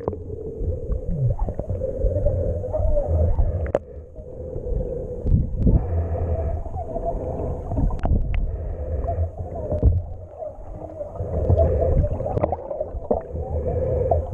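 Water heard through a camera held underwater: a muffled low rumble with gurgling and a wavering hum, broken by a few sharp clicks and knocks.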